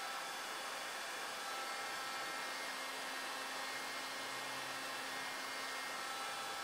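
Steady, even hiss with a few faint steady high tones and a weak low hum, unchanging throughout.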